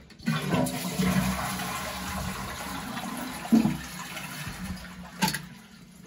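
Toilet cistern flushing through its push-button flush valve: a rush of water that starts just after the button press and fades steadily as the tank empties, with a couple of short knocks. The water supply is shut off, so the cistern drains without refilling.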